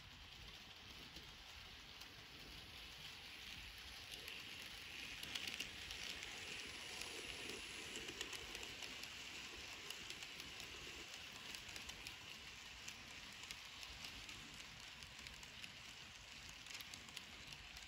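Model railway train running along the track: a faint, steady rattling hiss of wheels on the rails with many fine clicks, getting louder about five seconds in.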